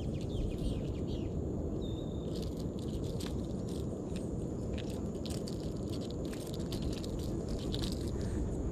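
Outdoor riverside ambience: a steady high insect drone and a short bird chirp about two seconds in, over a steady low rush of noise. Scattered small clicks and scrapes come from a fishing lure and its treble hooks being worked free of a small fish's mouth by hand.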